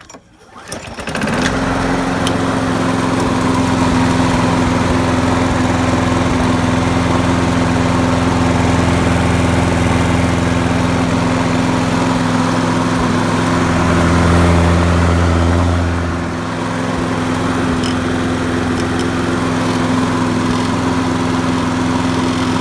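A lawn mower's small gasoline engine starts about a second in and then runs steadily. Its note shifts briefly a little past the middle. The engine is running again after a reported bad fuel diaphragm and a dirty spark plug were cleaned out.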